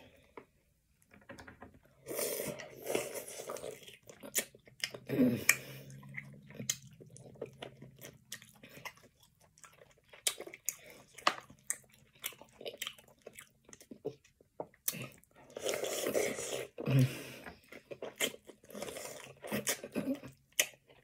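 A person chewing and biting food close to the microphone: wet mouth sounds and many irregular clicks, with denser stretches of chewing about two seconds in and again around sixteen seconds in.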